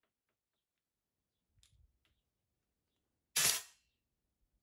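A handheld compressed-air blow gun fired once through a clear plastic tube: a short hiss of air about three seconds in that fades within half a second.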